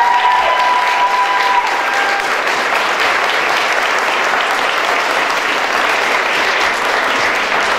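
Crowd applauding, dense and steady hand clapping. A long high held note sounds through it over the first two seconds.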